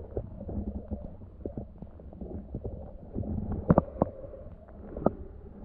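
Muffled underwater rumble and water movement heard through a submerged camera, with irregular small knocks and a couple of sharper ones about two thirds of the way in.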